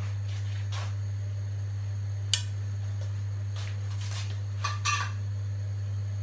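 Kitchen utensils clinking against a cooking pot: one sharp clink a little over two seconds in, then a quick cluster of clinks near the end, over a steady low electrical hum.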